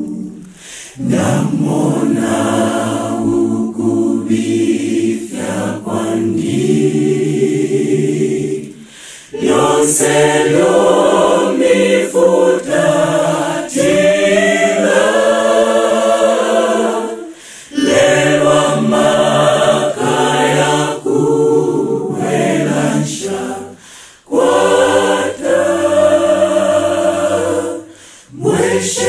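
A choir singing a hymn in several voice parts, in sung phrases of a few seconds broken by short pauses for breath.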